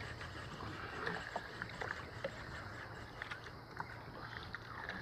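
Steady wind and sea noise around a small open boat, with faint scattered clicks as fishing line and tackle are handled.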